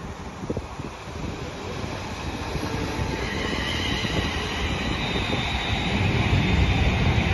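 Train approaching along the station tracks, its rumble growing steadily louder, with a thin high whine from the rails joining about three seconds in.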